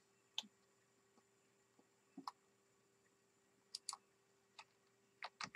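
Faint clicks of a computer mouse and keyboard: a few scattered single clicks, then a quick run of keystrokes starting near the end.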